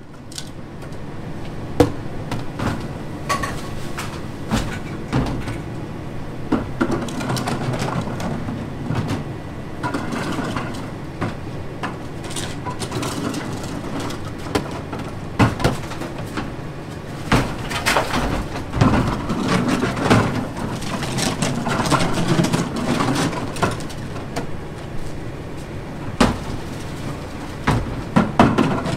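Autocar ACX garbage truck with a McNeilus rear-load body running, with frequent sharp metal bangs and clatter over the steady engine noise.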